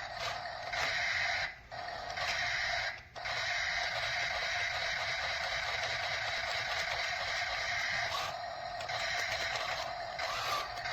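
Small electric motors and plastic gearing of a toy 1/24 RC battle tank running with a steady whine. They stop briefly twice in the first few seconds, then run on steadily.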